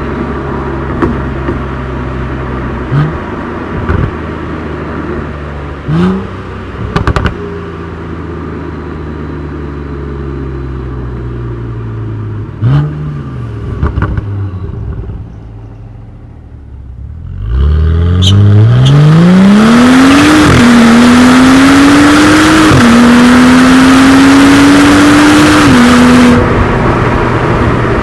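BMW N55 turbocharged inline-six through a custom exhaust: it cruises with a steady drone and a few sharp cracks, goes quiet off the throttle, then pulls hard under full throttle from about two-thirds in, its pitch climbing and dropping at three upshifts before it settles back to cruise.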